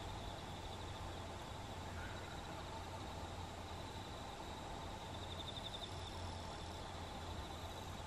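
Steady outdoor ambience with a continuous high-pitched insect trill over a low steady hum.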